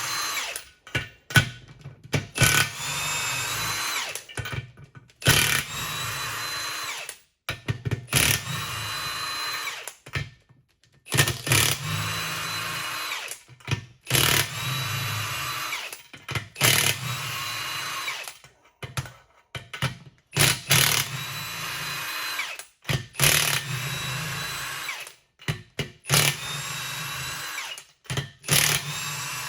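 Cordless impact gun spinning off the nuts that hold the two halves of a Humvee 12-bolt wheel together. It runs in about ten bursts of one to two and a half seconds, each rising in pitch as it spins up, then holding steady.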